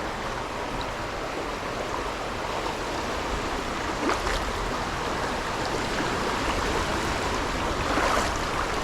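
Steady rush of a small stream's water flowing over rocks, with a couple of faint brief splashes.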